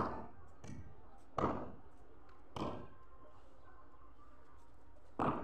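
Sharp knocks of a cricket bat striking during batting practice: three about a second and a quarter apart in the first three seconds, then one more near the end, each ringing briefly.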